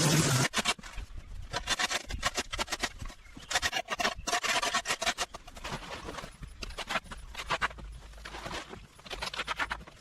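Irregular scraping and rubbing strokes of yard clearing work in overgrown brush and debris, fast and uneven. A steady humming sound cuts off about half a second in.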